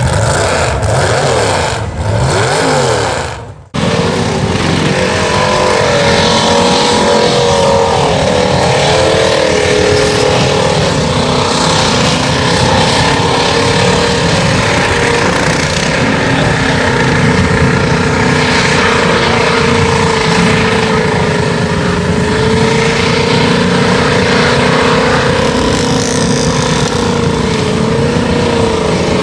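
A short intro sound with sweeping tones cuts off about four seconds in. Then a bobbed Jeep Cherokee XJ's engine runs hard under heavy load as the Jeep pushes through deep mud and water. Its pitch wavers up and down at first, then holds steadier.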